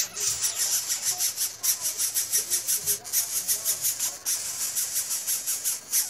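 Nestlings begging at the nest: a high, raspy rasping call repeated in a steady rhythm of about four pulses a second.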